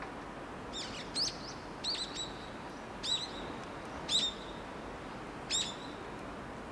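A small bird giving about six sharp chirps at irregular intervals, each a quick downward sweep that ends on a short held note, over a steady low background noise.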